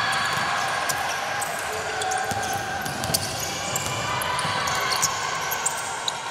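Basketball game on an indoor court: the ball bouncing on the floor in irregular sharp knocks over a steady background, with some drawn-out high tones.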